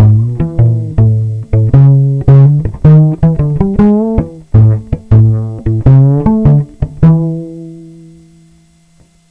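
Cello played pizzicato through a David Gage Realist pickup: a quick run of plucked notes, the last one ringing out and fading away over about two seconds near the end.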